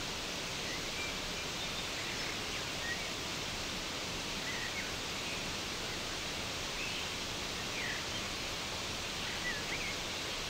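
Steady rushing of a rocky mountain stream, with a few short bird chirps scattered through it.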